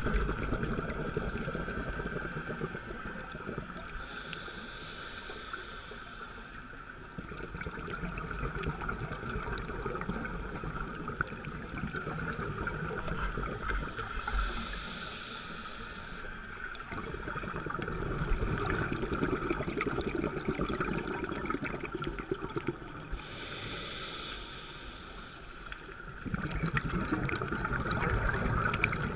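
Scuba diver breathing through a regulator underwater, heard through a camera housing: three short hissing inhalations about nine to ten seconds apart, each followed by a longer low rumble of exhaled bubbles, over a steady muffled water noise.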